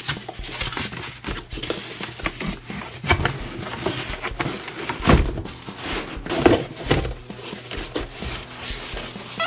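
Cardboard speaker box being opened and its cardboard inner packaging slid out and handled: scraping and rustling with a few dull thumps, the heaviest about halfway through.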